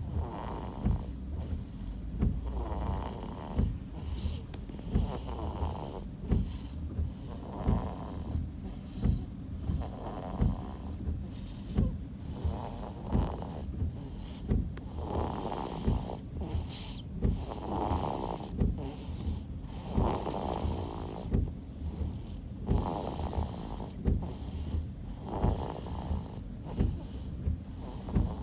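Newborn baby snoring loudly in sleep, a rough snore on each breath, coming in a steady rhythm about every two and a half seconds.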